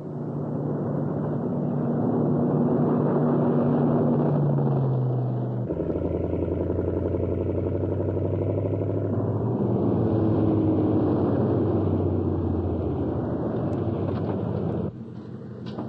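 A vehicle engine running steadily with a deep drone. Its tone changes abruptly twice, and it cuts off suddenly near the end.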